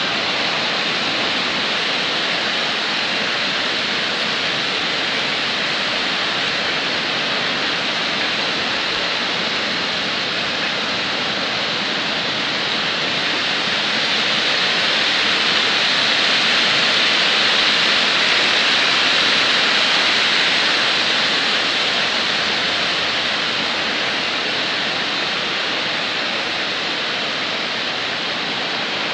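Water rushing through a dam's spillway into churning whitewater below: a steady, dense rush of water that swells a little louder for several seconds in the middle.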